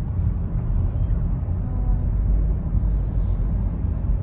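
Car driving at steady speed: a continuous low rumble of road and wind noise.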